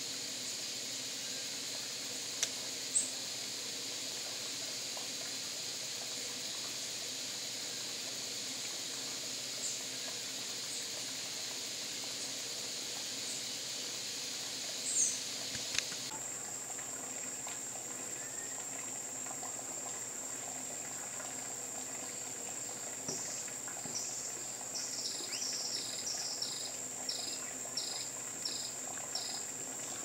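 Steady high-pitched insect drone. About halfway through it switches abruptly to a thinner, steadier tone. Near the end a run of short high chirps comes about twice a second.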